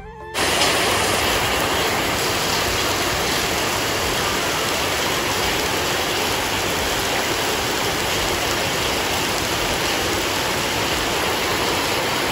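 Heavy rain pouring down steadily on paved ground, a dense even hiss that cuts in just after the start.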